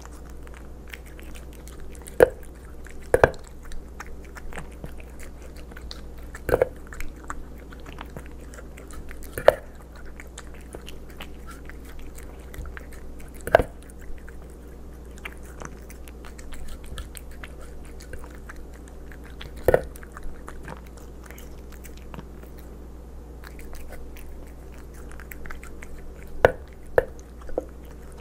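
Bengal cat eating Fancy Feast Gravy Lovers wet food: wet chewing with loud chomps every few seconds and small clicks between them, over a steady low hum.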